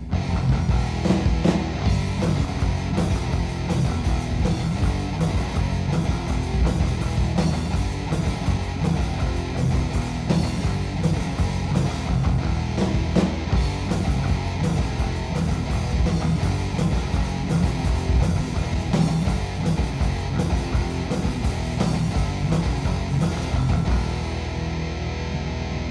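Thrash metal band playing on a 1988 demo recording: distorted electric guitar riffing over bass and fast drums. Near the end the sound drops back and becomes thinner and slightly quieter.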